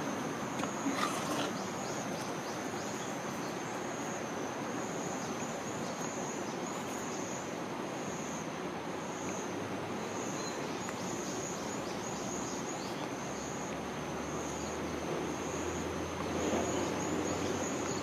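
Insects trilling in a steady, high, slightly pulsing tone over a hiss of background noise, with faint scratches of a 0.7 mm mechanical pencil writing on paper. A low hum comes in near the end.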